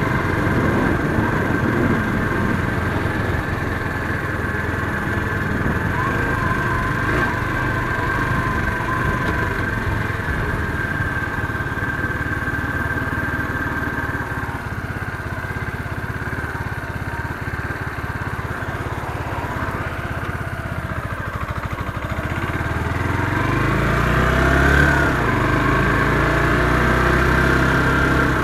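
Motorcycle engine running steadily at low speed, then revving up and accelerating near the end, its pitch rising as it gets louder.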